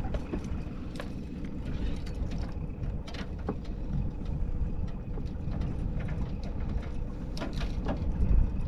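Outboard motor running steadily, with a few light knocks and clicks from inside the aluminum boat.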